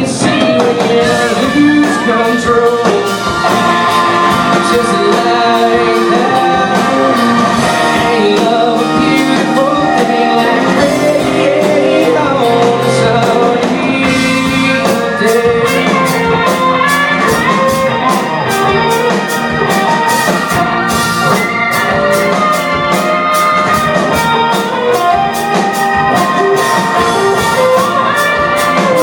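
Country song with singing over guitar and drums, with a steady drum beat in the second half.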